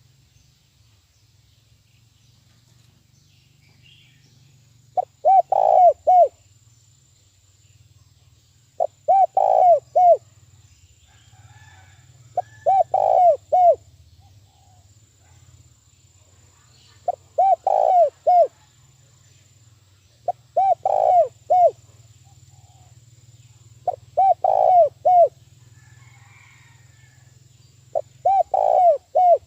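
Spotted dove cooing: seven phrases of three or four quick coos, repeated about every four seconds. It is a decoy dove's call, used to lure wild doves.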